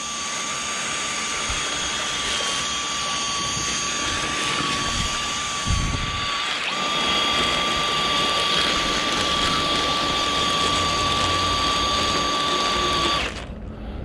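Cordless drill spinning a flex-shaft drain-cleaning cable inside a sewer pipe, running steadily with a constant whine, briefly faltering about halfway, then stopping about a second before the end.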